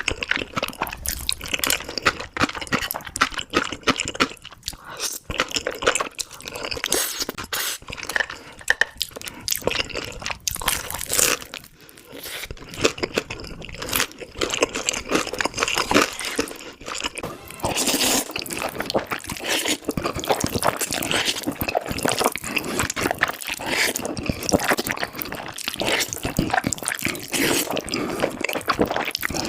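Close-miked slurping and wet chewing of black bean noodles, a dense run of sticky smacks and clicks that grows wetter and steadier in the second half.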